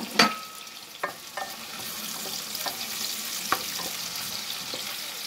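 Sliced onions with garlic and ginger sizzling in hot oil in an aluminium pot while a wooden spoon stirs them, knocking now and then against the pot. A sharp clink with a short ring sounds right at the start, and the sizzle grows louder from about two seconds in.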